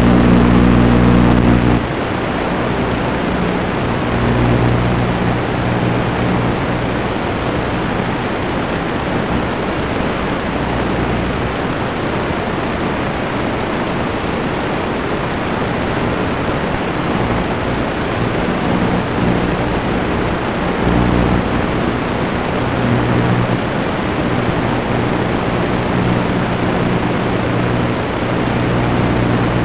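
Steady hiss of static from an analog FPV video link as recorded by the goggles, with a low, even buzz that fades about two seconds in and comes back for a while about two-thirds of the way through and again near the end.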